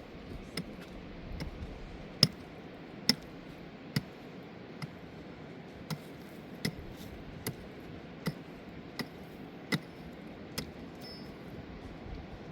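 A steady run of sharp knocks or taps, a little more than one a second, over a steady background hiss.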